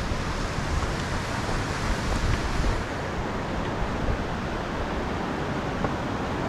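Steady rush of a mountain stream or waterfall, with wind buffeting the microphone for the first few seconds.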